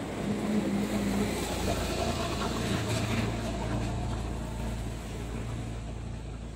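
A low, steady engine rumble that slowly fades.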